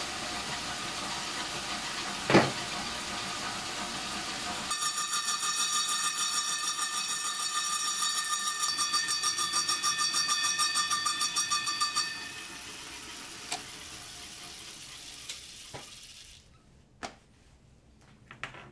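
Atlas metal lathe running with a carbide circular saw blade on the spindle. About five seconds in, the blade bites into an aluminium block and gives a loud, pulsing, high ringing whine as it slits the metal. The cut stops about twelve seconds in, the lathe winds down to quiet, and a few light metal clicks follow. There is a single knock about two seconds in.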